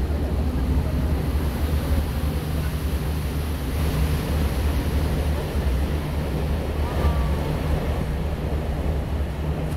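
Steady low engine rumble of a river excursion boat passing close below, with water wash and wind buffeting the microphone.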